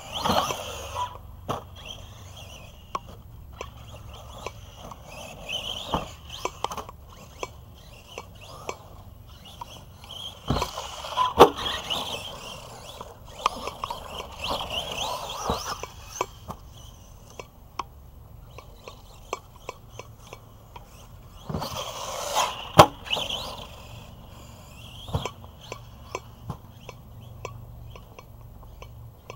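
Arrma Big Rock V3 RC monster truck running on a dirt track: its electric motor and gears whine in repeated bursts of throttle, with tyre noise on the dirt. A few sharp knocks stand out, the loudest about 11 and 23 seconds in.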